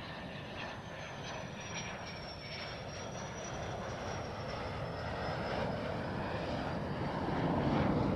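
F-16 fighter jet's turbofan engine on a gear-down landing approach: steady jet noise with a thin high whine that slowly falls in pitch, growing louder near the end as the jet comes closer.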